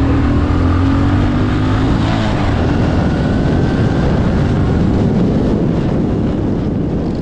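Motorbike engine running while riding along, under heavy wind rush on the microphone; the engine note rises slightly over the first two seconds.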